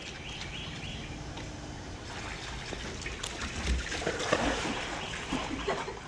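Shallow pool water splashing and trickling as a husky wades through it, a little louder about four to five seconds in.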